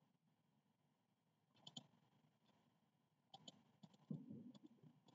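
Computer mouse clicking: a few faint clicks, several in quick pairs, spaced a second or more apart. A soft low rustle comes about four seconds in.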